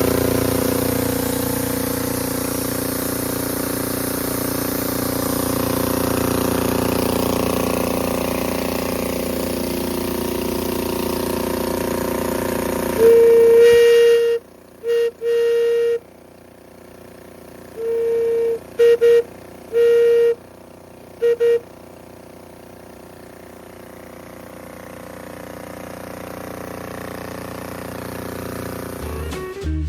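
Air-cooled Wisconsin engines of a garden tractor and a towed air compressor running. About halfway through, the engine noise drops and a Buckeye brass steam whistle, blown on compressed air, gives one long blast followed by a string of short toots.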